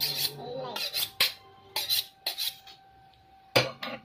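Kitchen knife being drawn along a honing steel: quick metallic scraping strokes, several in the first two and a half seconds and two more near the end.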